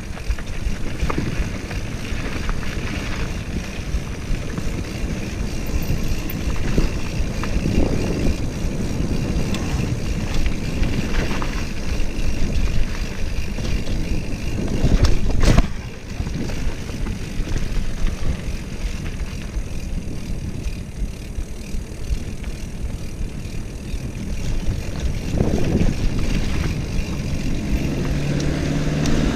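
Mountain bike riding fast down a dirt trail: knobby tyres rolling over the ground, the bike rattling over bumps and wind buffeting the microphone. About fifteen seconds in, a sharp clatter from a hard bump is the loudest moment.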